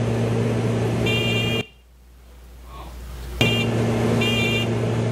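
Soundtrack of a King Air throttle-quadrant video played over loudspeakers: a steady hum with short groups of high electronic beeps. It cuts off suddenly about a second and a half in, comes back after about two seconds, and cuts off again just before the end.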